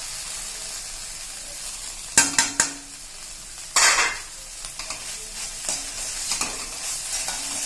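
Beans and peanut stir-fry sizzling softly in a pan as it is stirred, with three quick clicks of the utensil against the pan about two seconds in and a louder scrape near the middle, then a few lighter taps.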